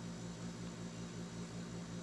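Steady low background hum with a fast, even pulsing underneath and a light hiss.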